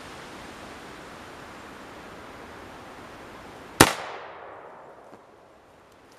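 AEA Zeus .72 calibre pre-charged pneumatic air rifle firing a single shot: one sharp, wicked loud crack about four seconds in that rings off briefly, over a steady hiss of outdoor background noise.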